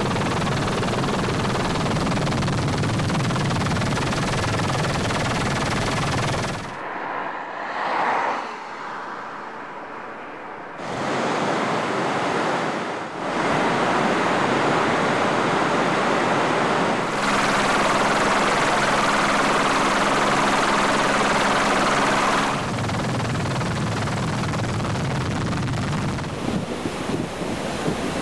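Floodwater rushing in a swollen river, a loud even noise that changes abruptly several times and drops to a quieter stretch about seven seconds in. For about five seconds in the second half, a steady low hum sits under the water noise.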